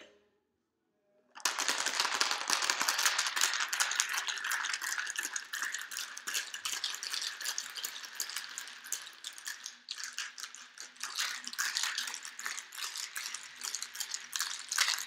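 Ice rattling hard in a metal cocktail shaker tin, shaken fast for the wet shake of an egg-based cocktail, starting about a second and a half in with a brief pause about ten seconds in.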